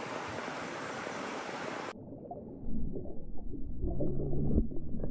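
Steady rush of a river, which turns abruptly muffled about two seconds in as the microphone goes under water; from then on, low muffled gurgling and sloshing of water stirred by the landing net as a rainbow trout is released.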